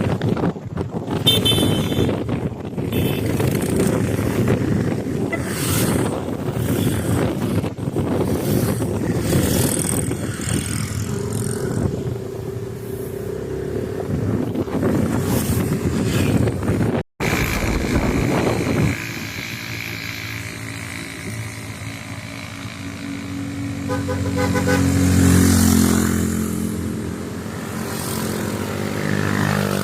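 Motorcycle riding with heavy wind noise on the microphone. After a cut about 17 seconds in, a motorcycle engine runs with a clear pitched hum that swells louder about 25 seconds in.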